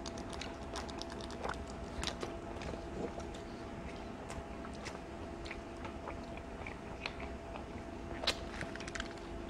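Close-miked chewing of a mouthful of pizza crust: irregular wet, crunchy mouth clicks. Near the end there is a sharper click as he sips a drink through a straw.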